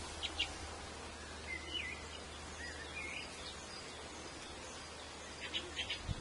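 Outdoor garden ambience: birds chirp a few times over a steady low background hum, with a few short light clicks near the start and again near the end.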